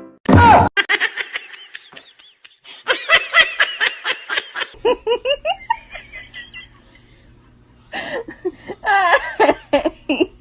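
Laughter in several separate runs of quick, repeated bursts.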